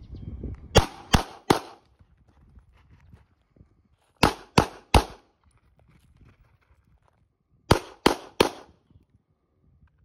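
Nine handgun shots in three strings of three, the shots in each string about a third of a second apart. There are roughly three seconds between strings while the shooter moves laterally to a new firing spot.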